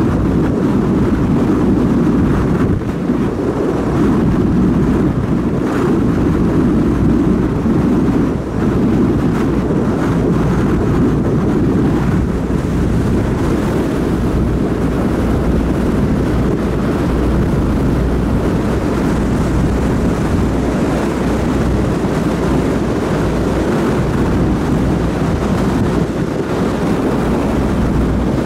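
Wind buffeting the microphone on the deck of a moving ferry at sea: a steady, loud, low rushing that wavers slightly, with no break.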